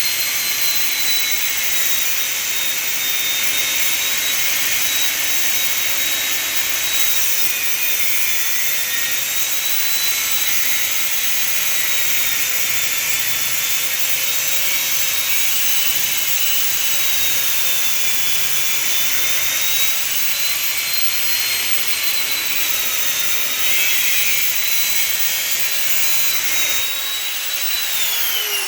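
Electric power cutting tool running continuously as it cuts steel off a piece of scrap brass. It makes a loud, high whine whose pitch dips and recovers slightly under load, and the pitch begins to fall as the tool is released near the end.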